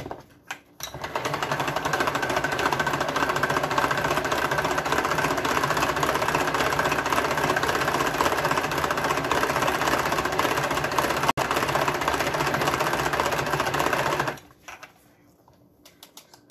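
A couple of clicks as the Tupperware Whip-N-Mix lid is seated on its jug, then the hand-cranked mixer turned fast: a steady, rapid plastic gear-and-whisk whirr that churns the milk and egg mixture to a froth, with one brief break, stopping abruptly near the end.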